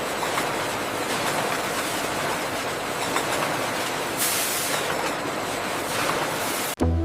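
Steady mechanical noise, an even hiss with faint ticks running through it. It cuts off suddenly near the end as music begins.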